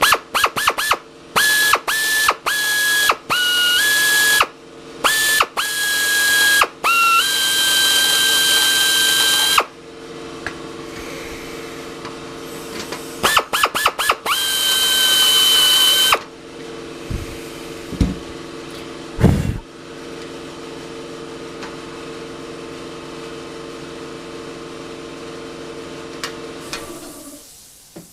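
A power drill run in short trigger bursts, each a high whine, with a few longer runs: drilling out the heads of aluminium rivets with a number 40 bit. A steady low hum runs underneath and stops near the end.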